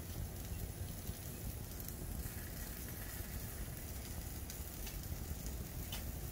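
Chicken drumsticks sizzling over charcoal on an open grill: a steady hiss with a few faint crackles, over a low rumble.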